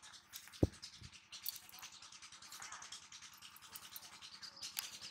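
Close handling noise as a caught fish is taken off the hook by hand: faint, irregular rustling and scratching, with one sharp thump about half a second in.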